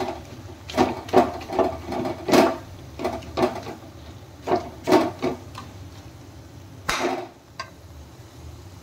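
Metal ladle scraping and knocking against a metal kadhai while stirring diced turnip sabzi: a run of clatters in the first few seconds, a few more about halfway, and one last knock near the end.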